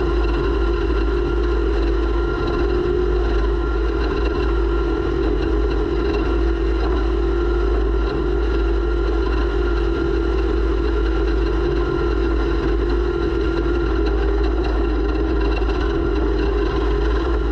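Off-road race vehicle's engine running steadily at constant revs, with a deep steady rumble underneath, picked up by a camera mounted on the vehicle.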